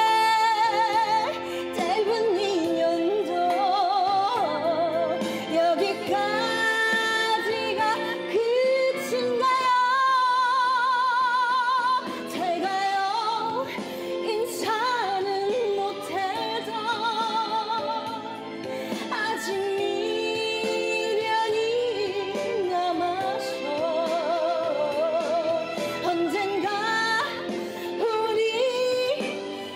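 A woman singing a Korean trot song into a handheld microphone, with heavy vibrato on the held notes, over an instrumental backing track.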